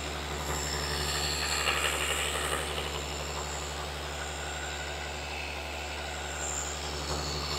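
Flex FX3331 24V cordless gear-driven orbital polisher running steadily with a foam pad working compound on car paint: a continuous motor and gear hum with a faint whine that wavers a little under load.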